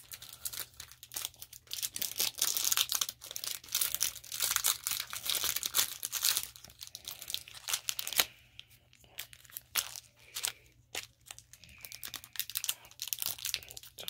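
Packaging being handled and torn open by hand: irregular crinkling and tearing rustles with many small clicks, and one sharp click about eight seconds in.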